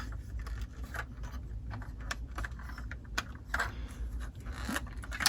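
Light plastic clicks and taps as a LEGO model van is handled and its parts moved, irregular and scattered.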